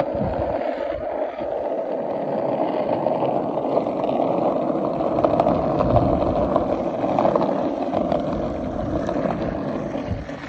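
Skateboard wheels rolling fast on an asphalt road, a steady rumbling roar.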